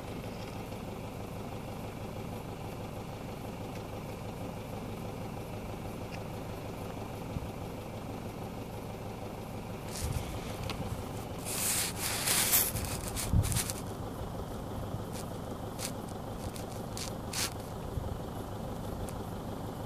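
Scraping and crackling of loose dry soil and grass in a cluster of short bursts about halfway through, then a few scattered clicks, over a steady low hum.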